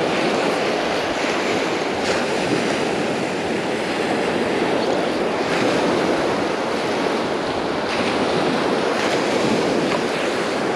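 Steady wash of surf breaking on the beach, with wind buffeting the microphone.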